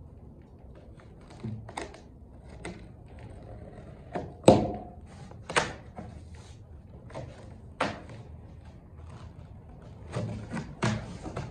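Cardboard shipping box being opened and handled: flaps scraping and folding back, with several knocks and thumps, the loudest about four and a half seconds in and a cluster near the end.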